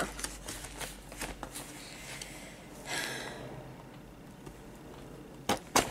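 A taped cardboard kit box being handled and worked open: faint rustling, a short scraping hiss about three seconds in, and two sharp knocks near the end.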